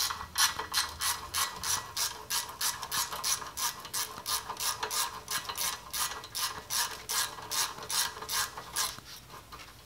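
Ratchet wrench clicking steadily, about three to four clicks a second, as a 10 mm bolt holding the parking brake cable is backed out of the rear brake backing plate; the clicking stops near the end.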